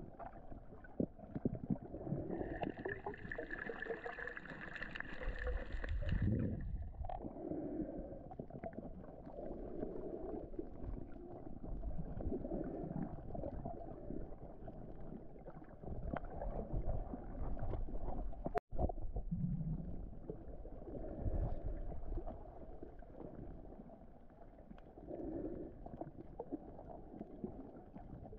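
Muffled underwater noise of water moving around a snorkeller's camera, low and churning, swelling softly every couple of seconds. A steady high whine sounds for about four seconds near the start.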